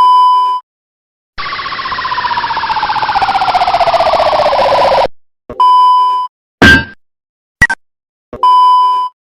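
Cartoon sound effects separated by short censor-style beeps: a beep, then a long falling, rapidly warbling tone lasting several seconds that grows louder before cutting off, then another beep, two brief effects and a final beep.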